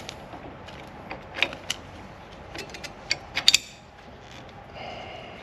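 Metal clinks and clanks as a three-point hitch lower link and its pin are handled and fitted onto the tractor, with a quick cluster of sharper clanks about three seconds in.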